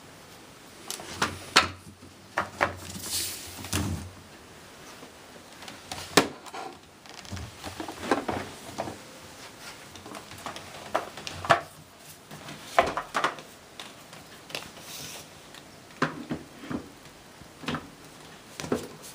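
Hard plastic parts of a vacuum cleaner being handled, with irregular clicks and knocks and some rustling; the motor is not running.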